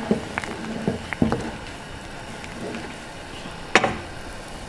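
Wooden spoon stirring boiling tomato soup in a stainless steel pot, knocking against the pot several times in the first second and a half, then one louder clack near the end, over a steady low bubbling of the soup.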